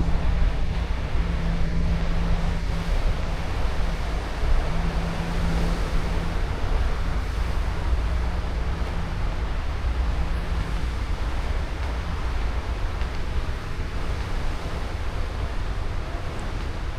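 Steady rushing air noise over a low machinery drone and hum aboard a cruise ship. The hum is strongest in the first few seconds and then fades back into the rush.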